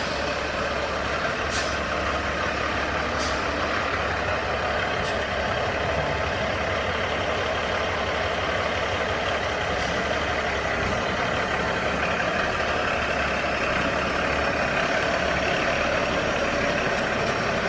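Semi-truck's diesel engine running at crawling speed close by, with several short, sharp air-brake hisses in the first ten seconds.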